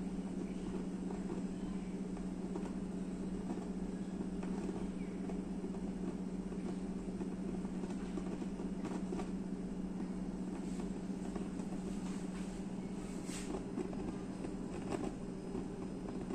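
Water boiling hard in a Midea MG-GP06B 0.6 L mini rice cooker under its glass lid: a steady bubbling rumble with a low hum, broken by scattered faint clicks.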